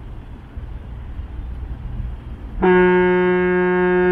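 Ship's horn sounding one long, steady blast that starts about two and a half seconds in, over a low rumble of wind on the microphone.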